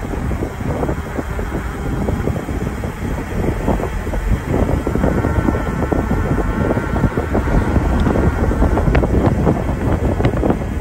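Wind buffeting the microphone of a camera moving at cycling speed, a loud, unsteady low rumble, with a few light clicks near the end.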